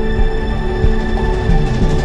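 Background soundtrack music of long, steadily held tones.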